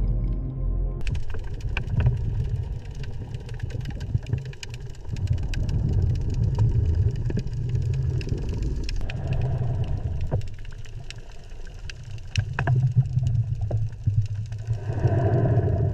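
Held musical tones stop about a second in, giving way to a loud, uneven low engine-like rumble that swells and eases, scattered with clicks and knocks.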